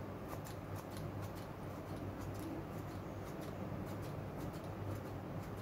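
Kitchen scissors snipping broccoli into small pieces, a few short, crisp snips a second at an uneven pace.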